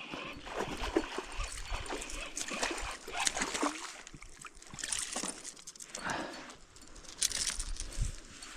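Water splashing and sloshing in short, irregular surges, as if something is being moved about in shallow water.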